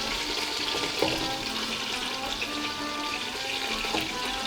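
Chicken frying in a pan: a steady sizzle.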